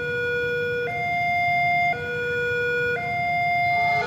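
Railway level-crossing warning alarm sounding an alternating two-tone signal, low then high, each tone held about a second, warning that a train is approaching.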